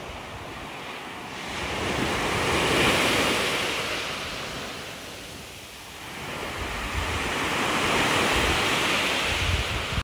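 Small sea waves breaking and washing up a sandy beach, the surf swelling louder twice.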